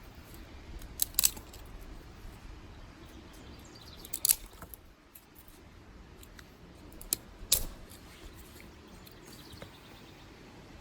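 Sticks and twigs being snapped, giving sharp cracks in quick clusters: a double crack about a second in, another around four seconds, and two more about seven seconds in.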